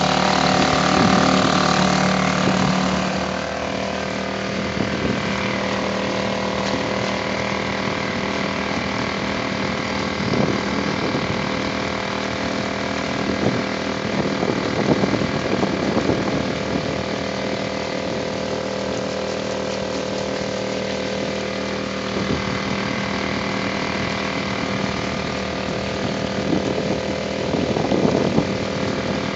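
Suzuki 2.5 hp four-stroke outboard motor running steadily, easing down in level about three seconds in, with brief swells of water noise several times.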